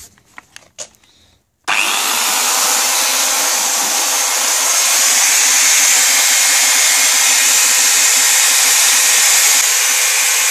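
A few faint clicks, then the Bosch AKE 30 S electric chainsaw is switched on just under two seconds in and runs steadily with no load, a constant motor whine over the chain's rushing noise. It is being run free so that the chain oils itself before cutting.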